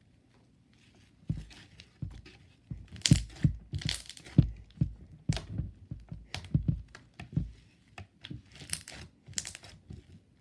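Stretchy slime being stretched, squished and pulled apart by hand, giving an irregular run of sticky pops, clicks and tearing crackles. The sounds start about a second in and carry on.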